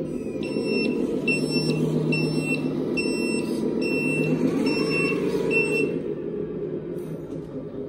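Electronic sound module of a Lesu 6x6 RC dump truck playing a steady simulated truck engine with a string of high reversing beeps, about every half second, from about a second in until about six seconds in. The beeps show the truck is in reverse.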